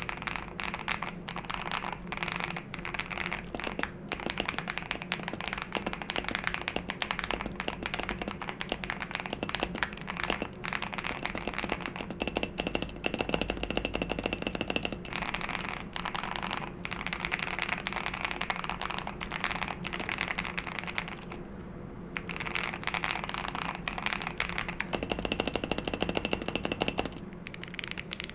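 Typing on a Wuque Studio Freya Ultra custom mechanical keyboard: a fast, continuous run of keystroke clicks, with two brief pauses, one a little past the middle and one near the end.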